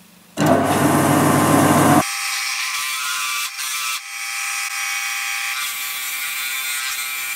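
Lathe spinning a 13 mm drill bit in a Jacobs chuck, boring a starter hole into the end of an Iroko wood candlestick. A loud rush of noise for about a second and a half gives way to a steady whine, with two brief dips in the middle.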